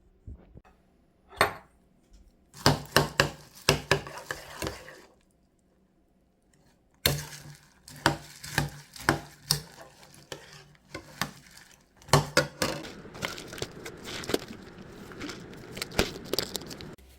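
Bursts of small clicks, clinks and clacks with some rustling, like dishes, utensils or packaging being handled: one group a couple of seconds in, then a pause, then a longer run of clatter from about seven seconds on.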